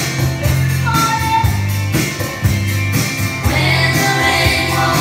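Music: a song with singing over a steady beat and a deep bass line.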